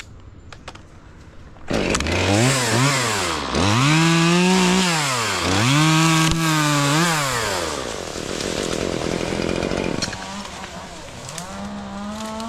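Chainsaw cutting in loudly a couple of seconds in and revving up and dropping back several times, then running steadier and lower for about two seconds before revving again near the end.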